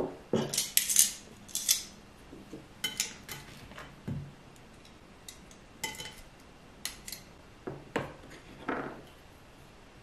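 Metal serving tongs clinking and scraping against a ceramic serving dish and a small ceramic plate as food is lifted and served: a cluster of sharp clinks in the first two seconds, then scattered lighter taps and scrapes.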